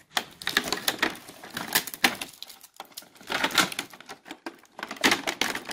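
Plastic wrap and plastic packaging of a toy playset crinkling and crackling as hands pull at it, with irregular clicks.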